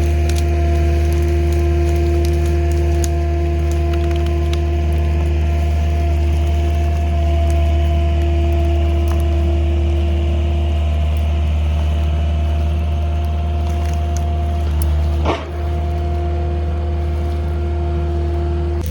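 An engine running steadily at a constant speed, with a brief dip and wobble in its note about fifteen seconds in.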